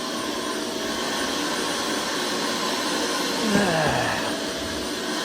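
Vacuum cleaner running steadily with a constant whooshing hiss; about three and a half seconds in, a brief tone slides down in pitch over the noise.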